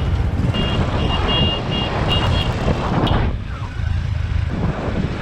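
Motor vehicle engine running with a steady low rumble, with a quick run of short, high electronic beeps about half a second in that stop after about two seconds.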